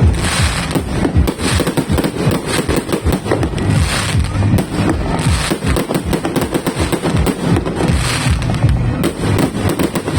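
Multi-shot fireworks cake firing a rapid, unbroken barrage of launches and bangs, with a crackling burst every second or two.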